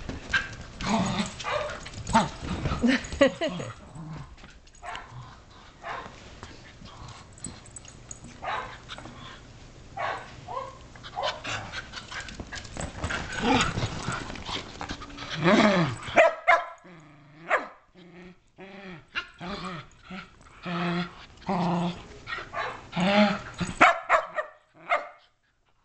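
Shetland sheepdog puppies and adult shelties play-fighting: growls, yips and barks mixed with scuffling and the click of claws on a tile floor. In the second half, one dog gives a run of short barks, about one or two a second.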